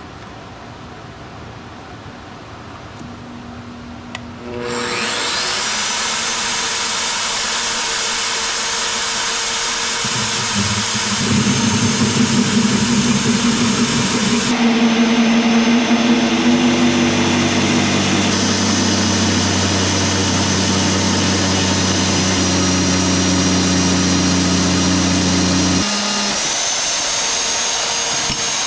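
DeWalt magnetic drill press motor starting about four seconds in with a rising whine, then running steadily. From about ten seconds an Evolution annular cutter bites into a square steel tube, adding a louder, lower grinding note. Near the end the cutting note stops and the motor whine climbs back up as the load comes off.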